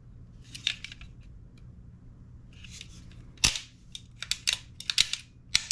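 Sharp metallic clicks and snaps from a Modify-Tech two-stage airsoft trigger box fitted in a Tokyo Marui MWS lower receiver as the parts are worked by hand, with light rustling of handling before them. There is one click about halfway through, then a quick run of clicks and another near the end.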